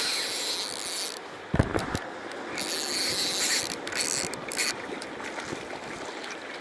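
Spinning reel working under the pull of a hooked pink salmon, in two stretches of reel noise: the first about a second long, the second about two seconds long. A dull thump comes about one and a half seconds in.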